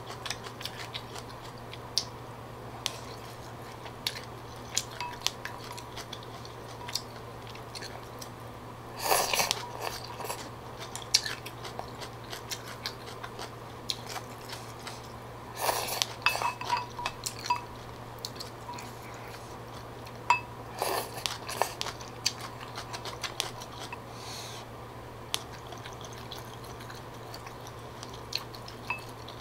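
Close-up eating sounds from a bowl of pho: chopsticks and a wooden spoon clicking and scraping against a ceramic bowl, with chewing. There are three louder spells of slurping of about a second each, as noodles are sucked in.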